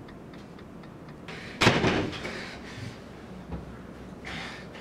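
A single loud slam about a second and a half in that dies away over most of a second. Before it comes a faint, regular ticking.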